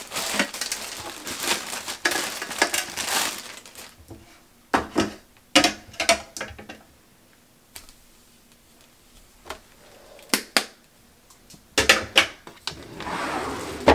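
Plastic packaging crinkling, then a scattering of sharp clicks and knocks as small hard plastic items are handled and set down, with more crinkling near the end.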